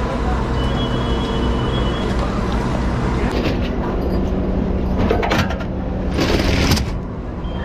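Fire engine running steadily, with short bursts of hissing over it; the loudest burst comes about six seconds in.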